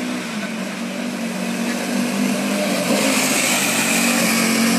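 Student Formula race car's engine running as the car drives past close by, growing louder about three seconds in with a rising hiss over the steady engine note.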